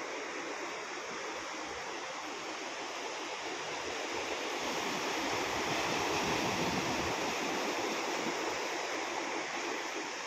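Sea surf breaking on a sandy beach: a steady rushing wash that swells a little louder around the middle.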